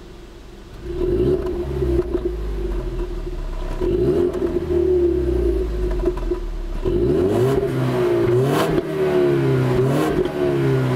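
Exhaust of a 2015 Ford Mustang EcoBoost's 2.3-litre turbocharged four-cylinder, heard at the tailpipes: it idles for a moment, then is revved in repeated blips from about a second in, each rising in pitch and falling back to idle. Two short sharp cracks come near the end.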